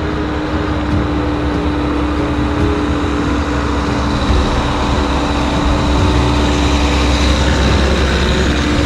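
Heavy machinery running steadily: a low engine rumble with a constant whine held over it, growing a little louder in the second half.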